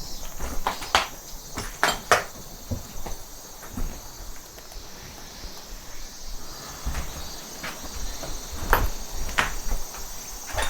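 Steady high-pitched insect chorus, with scattered clicks and knocks at irregular moments.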